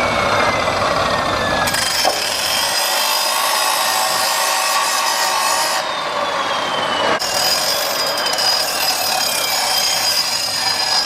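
Power tool cutting through a bicycle fork's steerer tube: a harsh, continuous grinding hiss with a thin whine that slowly falls in pitch as the cut goes on, broken by a few abrupt changes.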